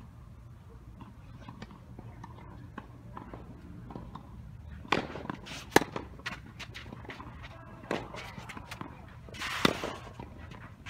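Tennis rally: sharp cracks of racket strings hitting the ball, with ball bounces. The hits begin about five seconds in, the loudest just before six seconds, and more follow near eight and ten seconds.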